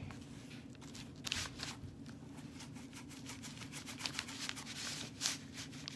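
Paintbrush brushing paint onto cardboard: a run of short, dry scraping strokes over a steady low hum.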